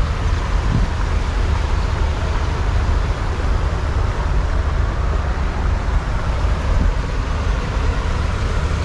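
Wind buffeting the microphone as a steady low rumble, over an even, continuous rushing noise.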